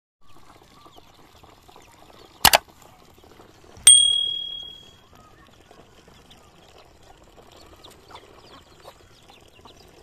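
Ducks dabbling and slurping in a shallow water dish, a soft patter of small splashes and clicks. About two and a half seconds in comes a sharp double click, and about a second later a sharp knock that rings with a high tone for about a second.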